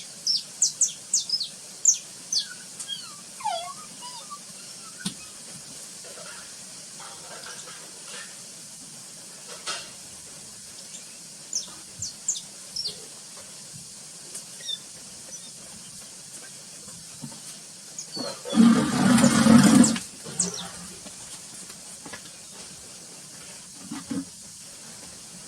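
Wild birds calling at dawn: scattered short, high chirps, thickest in the first few seconds and again midway, with one lower falling call. About three quarters through, a loud rushing noise lasts a second and a half.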